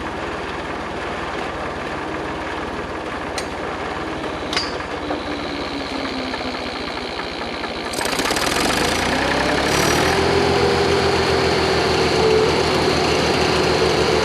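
Engine idling steadily with two sharp clicks, then revving up about eight seconds in, the pitch rising and holding at a higher, louder speed.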